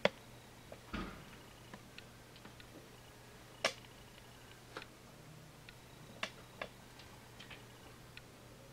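Sparse, irregular light clicks and taps on a plastic hamster cage and its tubes as the animals move against it, the sharpest a little under four seconds in. A faint steady low hum runs underneath.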